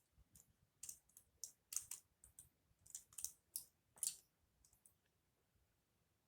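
Plastic marble run pieces being handled and fitted together: faint, irregular light clicks and rattles.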